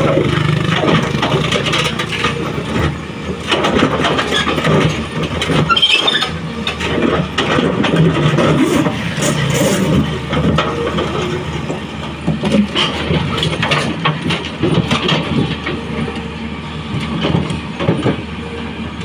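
Heavy diesel excavator engine running steadily under load, with irregular knocks and clatter throughout.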